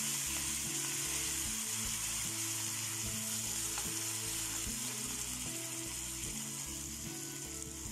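Hot oil tempering of dried red chillies, curry leaves and freshly added coriander leaves sizzling in a kadai on residual heat with the gas turned off, stirred with a spatula. The hiss fades slowly as the oil cools.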